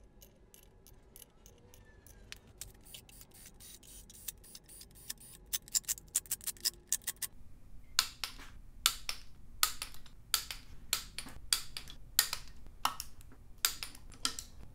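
Socket ratchet clicking as valley cover bolts are run in on an LS V8 block: a quick run of faint, rapid clicks, then from about halfway on louder separate clicks, one to two a second.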